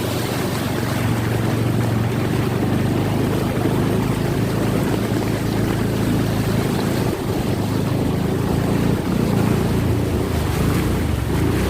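A vehicle engine running steadily while moving, with heavy wind rushing over the microphone.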